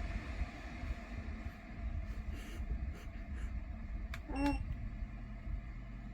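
Electric fan heater's control beeping once, about four and a half seconds in, over a low hum and light knocks and rustles.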